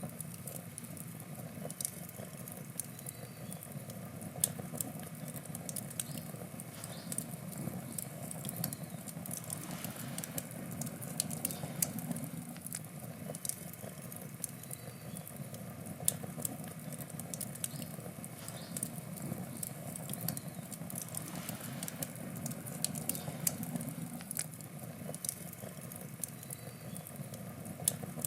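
Wood campfire burning: a steady low rush of flame with frequent, irregular sharp crackles and pops of burning wood.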